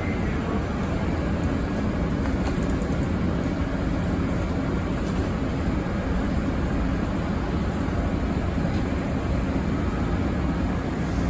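Steady low rumble and hum of a New York subway train standing at the platform with its doors open.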